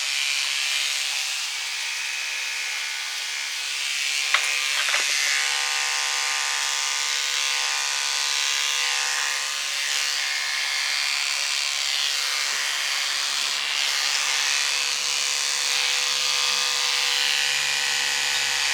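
Electric hair clippers fitted with a guard comb running steadily through a dog's long hair, a constant even hum with a couple of faint clicks about four seconds in.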